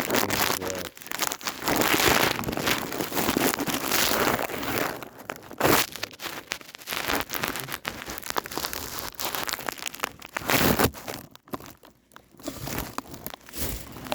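Close-up crackling and rustling handling noise on a cell phone's microphone, with scattered clicks and two louder knocks; it drops away briefly near the end.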